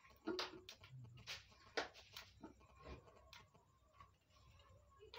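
Faint knife clicks and scrapes as a tinda (round gourd) is cut by hand over a metal pan, a string of short sharp ticks at uneven intervals.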